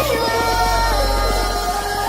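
Music: the song's outro, with held synth tones over a deep bass, slowly fading out.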